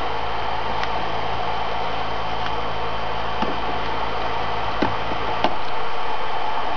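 Electric kettle heating water that is still short of the boil, at about 60 °C: a steady hissing rush from the heating water. A few light clicks and knocks are heard, the clearest two near the end.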